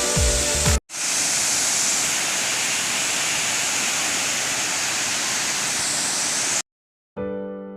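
Waterfall: the steady rush of falling water, which starts just after a brief moment of music and cuts off abruptly. A piano chord begins near the end.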